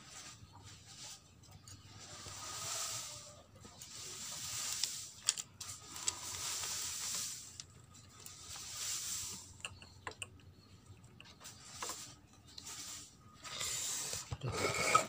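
Faint rustling and scraping in soft swells with a few light clicks, as a paper cylinder base gasket is worked by hand over the cylinder studs of a motorcycle engine.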